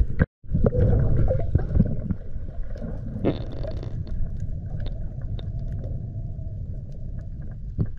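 Underwater sound picked up by a GoPro in its housing: a steady low rumble of moving water with gurgling and scattered faint clicks. It cuts out for a moment at the very start, and there is a brief hiss about three seconds in.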